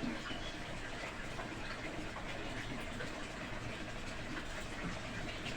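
Juice of crushed basak (Malabar nut) leaves being strained, a steady trickle of liquid.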